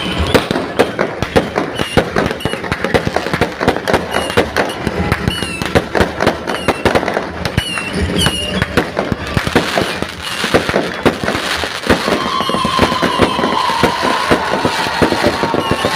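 Fireworks going off in a dense, rapid run of bangs and crackles. A long steady tone joins in about twelve seconds in.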